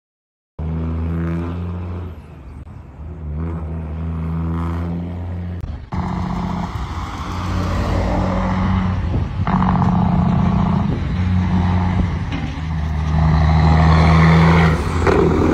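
Semi truck's diesel engine running hard with a steady low drone that surges up and down and grows louder toward the end, its exhaust stack shooting flames. It looks like a failed turbo feeding oil through the exhaust.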